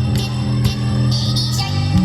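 Music with a steady beat, about two strokes a second, over sustained bass notes.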